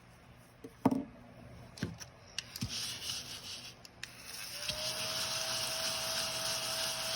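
Scratch-off card being scratched: a few taps, then steady scraping from about two and a half seconds in that grows stronger past the middle.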